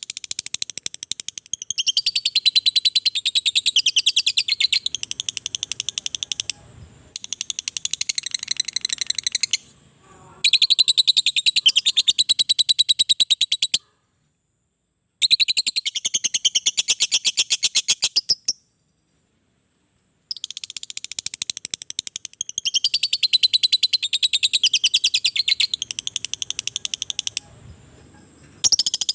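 Lovebird giving its long, rapid chattering call (ngekek panjang): fast, evenly repeated high-pitched notes in bouts several seconds long, broken by short pauses.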